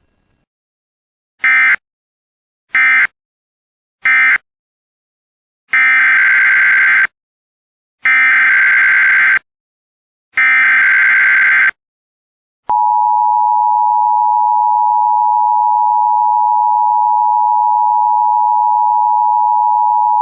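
Emergency Alert System tones. First three short digital data bursts, the end-of-message code closing the previous warning. Then three longer data bursts of the SAME header opening the next warning. Then the steady two-tone EAS attention signal, held for about eight seconds.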